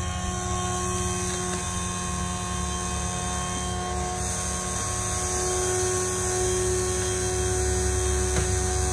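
Hydraulic mule (ground hydraulic power unit) running steadily, supplying pressure to swing the Piper Navajo PA-31-310's landing gear on jacks: a continuous machine hum with a low rumble and several fixed tones, growing slightly louder partway through.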